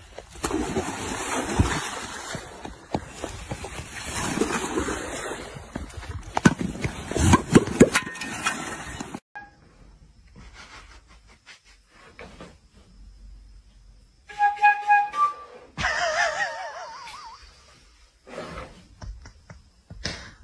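For about nine seconds, loud rough noise with sharp knocks from an outdoor phone recording, which then cuts off abruptly. In a quiet room a flute then plays a few short notes, followed by a wavering note.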